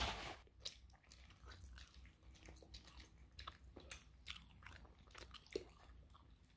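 Near silence with a few faint, scattered small clicks and rustles.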